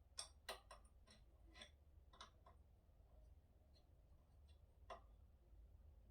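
Faint, sharp clicks in quick succession, about ten in the first two and a half seconds and one more near five seconds, over a low steady hum.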